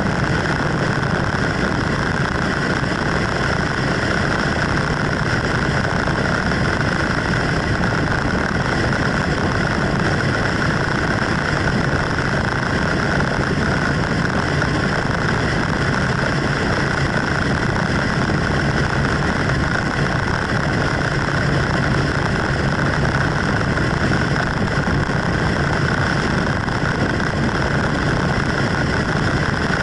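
Vehicle travelling at highway speed: a steady engine drone with wind and road noise, a constant low hum under a steady hiss that does not change.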